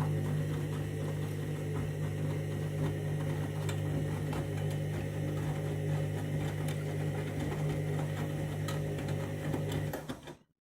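Candy washing machine on its main wash, the drum motor running with a steady hum and faint scattered clicks; the sound cuts off suddenly near the end.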